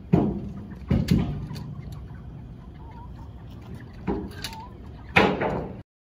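Crated broiler chickens squawking and clucking, with several sudden loud bangs over a low steady rumble; the sound cuts off just before the end.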